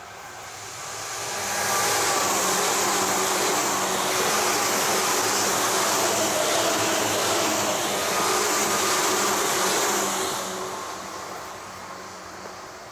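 Tokyu 8500 series electric commuter train passing close by. Its wheel and motor noise swells over the first couple of seconds, holds loud with a faint hum running through it, then fades away in the last few seconds.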